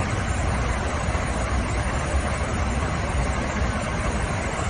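Steady rush of air and engine noise inside an airliner's cockpit at cruise altitude, an even hiss over a deep constant rumble.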